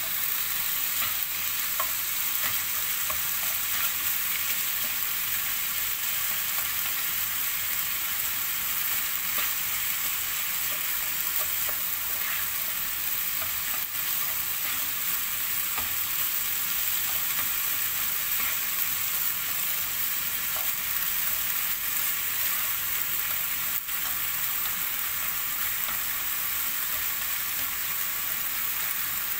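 Minced beef frying in a pan: a steady sizzle, with a few light clicks of the spoon as it is stirred.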